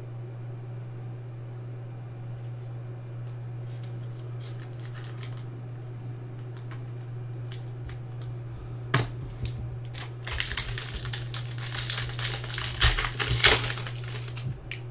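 A sharp click about nine seconds in, then the clear plastic wrapper of a trading-card pack crinkling as it is pulled open by hand, over a steady low hum.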